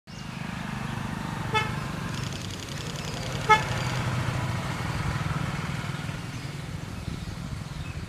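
Two short vehicle horn toots about two seconds apart, the second louder, over a steady low rumble of traffic.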